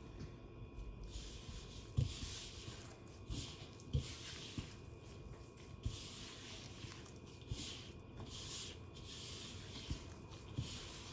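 Nitrile-gloved hands squeezing and kneading a damp, crumbly baking-soda and cornstarch mixture in a bowl. The sound is a series of rustling swells, each about a second long, with a dull knock every couple of seconds.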